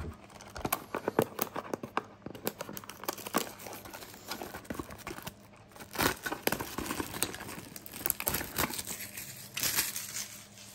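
Plastic shrink-wrap on a trading-card box crinkling and tearing as fingers peel it off, a dense run of sharp crackles with louder clusters about six seconds in and again near the end.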